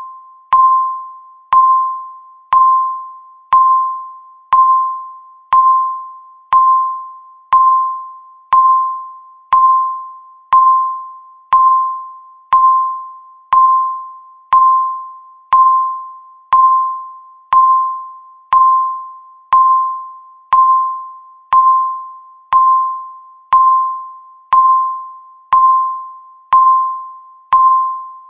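Countdown timer's per-second tick: a short click with a ringing, chime-like tone that fades away, repeating evenly once a second.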